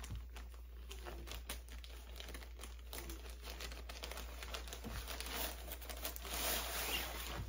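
Frosted plastic zip-top clothing bag crinkling and rustling as it is worked open and handled. The crackle gets somewhat louder in the second half as the bag is tipped to get at the clothes.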